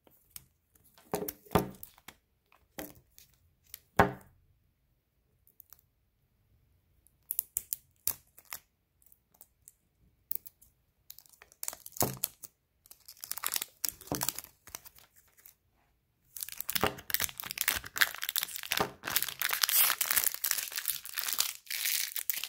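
Clear protective plastic film being picked at with a fingernail and peeled off a laptop power adapter's plastic case: scattered taps and scratches at first, then near the end a long stretch of continuous crackling and crinkling as the film comes away.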